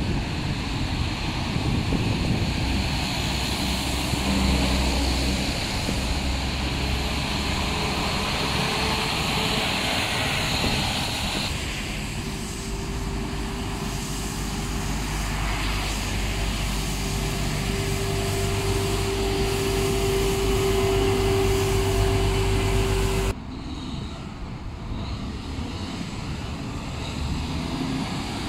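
Road traffic on wet pavement: cars, vans and trucks driving past, with tyre noise and engine hum. Through the middle stretch a steady whine sits over the traffic, and the sound changes abruptly twice.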